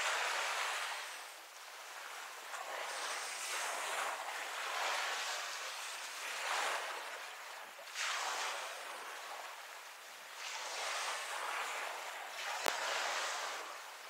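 Waves washing onto the beach: a hiss that swells and fades in surges every couple of seconds. One sharp click comes near the end.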